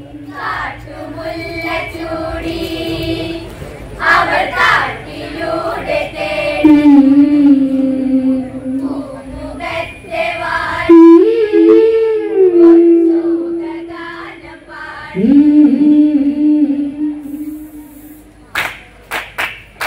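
Women's voices singing an Onamkali song through microphones, the group drawing out long held notes that bend and slide in pitch. A few sharp knocks come near the end.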